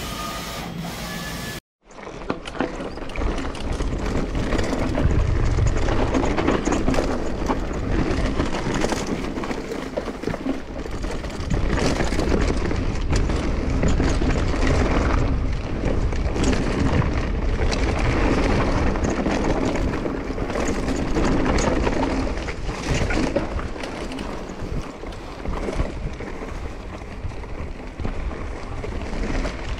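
Mountain bike riding down a dirt trail: a steady rush of wind on the microphone and tyre noise, with irregular knocks and rattles as the bike runs over bumps.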